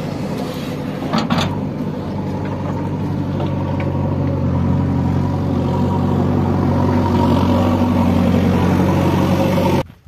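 Diesel engines of a JCB 3DX backhoe loader and a John Deere tractor running steadily, with a short knock about a second in. The engine sound grows louder and then cuts off abruptly near the end.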